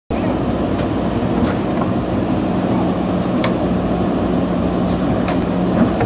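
Diesel engines of several JCB backhoe loaders running steadily under load as their hydraulic arms work, with a few short knocks, the loudest about three and a half seconds in.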